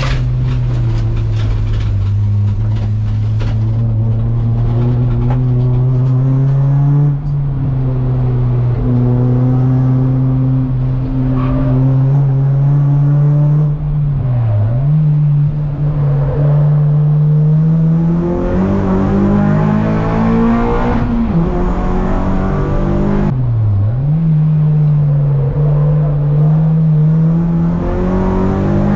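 Honda Accord Euro race car's K24 2.4-litre four-cylinder engine driven hard on track, heard from inside the stripped cabin. The loud, steady drone dips sharply twice, about halfway through and again about two-thirds through, and climbs back each time.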